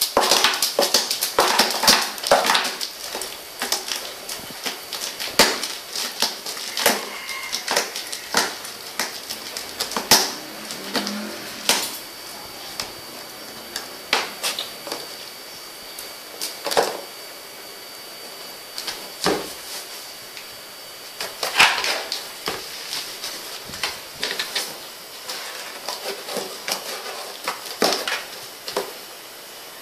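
A dog and a cat scuffling around a cardboard box on a tile floor: irregular clicks, taps and scrapes of claws and paws on the tiles and of the box being batted and nudged.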